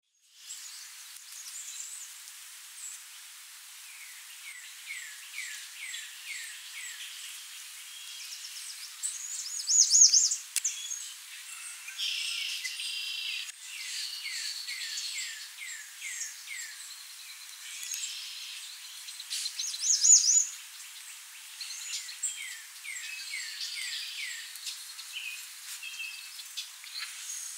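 Songbirds singing: runs of repeated downward-slurred whistled notes, about two a second, broken by two short, louder, very high-pitched trills about ten seconds in and again near twenty seconds.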